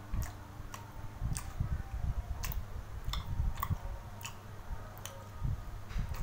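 About ten sharp, irregular clicks of a chopstick knocking against a ceramic bowl while eating, over low handling and chewing noises.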